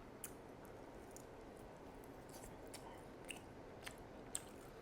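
Faint close-miked chewing of a fried pork cutlet: a handful of soft, short mouth clicks scattered over a low hiss.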